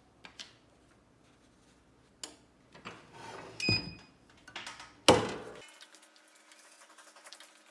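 Paper rustling as a transfer sheet is laid on the shirt, then a clamshell heat press is pulled shut: a short beep as the lid comes down, and a loud clunk about five seconds in as the handle locks the platen closed.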